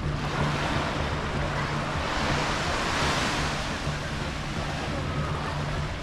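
Sea waves washing onto the shore, the rush swelling about halfway through, with a steady low hum underneath.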